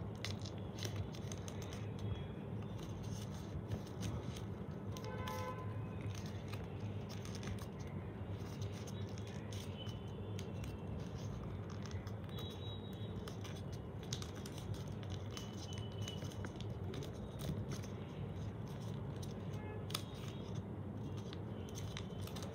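Origami paper being folded and creased by hand: soft rustling and crinkling with many small scattered clicks and scrapes, over a steady low hum.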